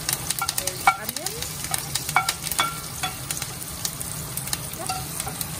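A wooden spatula scrapes chopped onion off a ceramic plate into a wok, the pieces dropping onto the spices, with many small sharp clicks and crackles and a few short squeaky scrapes.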